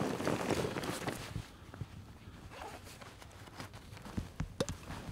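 Hunter's clothing and backpack rustling as he gets down onto frozen, snowy ground, dense for about the first second and a half. It then goes quieter, with a few light clicks and knocks near the end as gear is settled.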